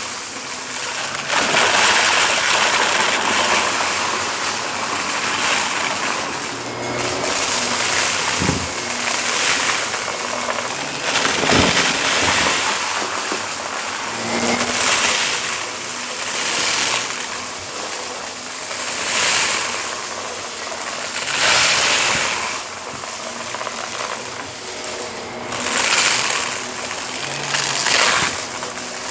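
Shark vacuum cleaner running on carpet in fast back-and-forth strokes, its steady hiss swelling and fading every two to three seconds, with a couple of sharp clicks from debris being picked up.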